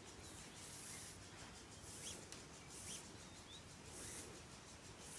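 Faint, soft swishes of nylon paracord being pulled through the fingers and through braid loops, several short strokes.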